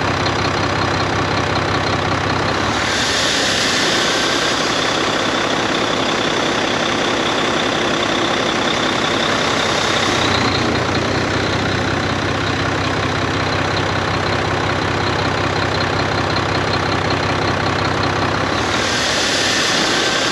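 Volvo D13 diesel engine running just after start-up, surging up and down. Each surge, about 3 seconds in and again near the end, brings a loud windy rush with a high whistle. The owner traces this extra 'breeze' to a seal left off after accident repairs, which leaves an air leak.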